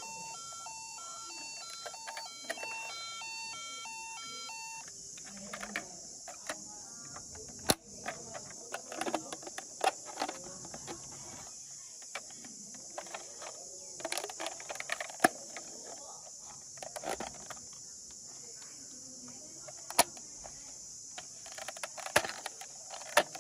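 A toy's electronic sound chip plays a fast beeping tune that cuts off about five seconds in. After it come scattered sharp plastic clicks and knocks from toys being handled. A steady high hiss runs throughout.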